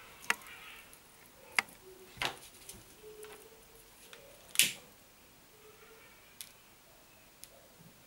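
A handful of sharp clicks and snaps from hands stripping the insulation off a thin stranded network-cable wire, the loudest about halfway through.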